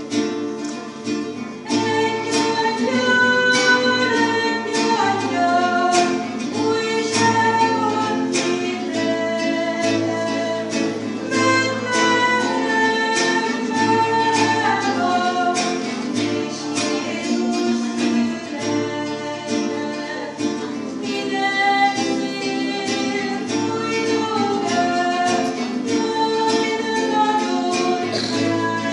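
Music led by plucked acoustic guitar, with a flowing melody line above steady bass notes.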